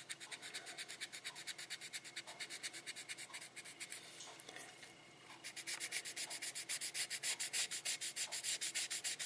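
1800-grit wet sandpaper rubbed in quick, even back-and-forth strokes over the painted body of a plastic scale model car, a soft rhythmic scratching. The strokes fade about four seconds in, then resume more strongly. This is wet sanding to level the orange peel in the paint.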